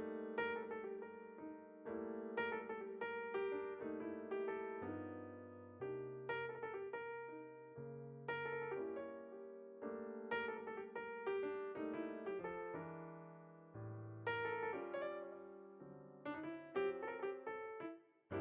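Background solo piano music: slow, gentle notes and chords, each struck and left to fade.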